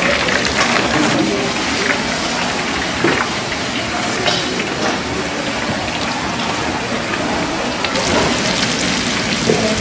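Batter-coated bread triangles deep-frying in a wide pan of hot oil: a steady sizzle, with a few short clicks over it.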